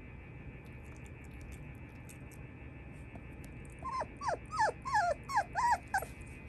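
Shiba Inu puppy whimpering: a quick string of about eight short, high-pitched whines, each falling in pitch, starting about four seconds in and lasting about two seconds.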